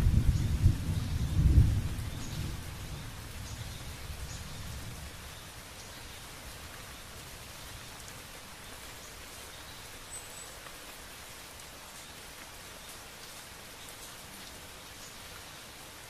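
Thunder rumbling and dying away over the first few seconds, then a steady hiss of rain with faint scattered drop ticks.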